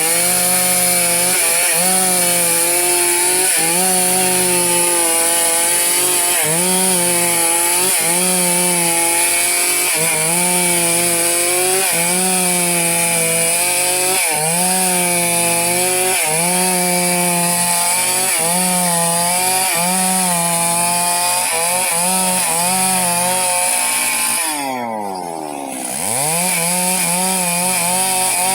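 Two-stroke chainsaw at full throttle cutting timber, its pitch dipping and recovering about every two seconds as the chain bites and loads. About 24 seconds in, the throttle is let off: the engine falls toward idle, then revs back up.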